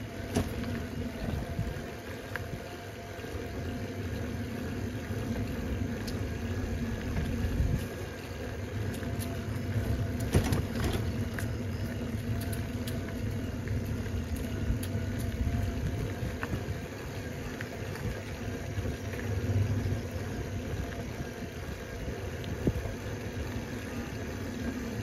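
A vehicle driving slowly along a narrow, uneven road: a steady low engine and road rumble with a faint hum, and a few knocks from bumps, the loudest about ten seconds in.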